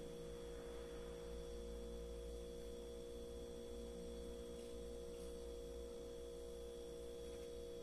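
Steady electrical hum holding one pitch throughout, with a fainter high whine above it; no other sound stands out.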